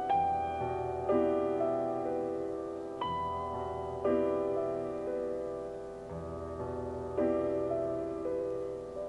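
Slow background piano music: chords struck every second or so and left to ring.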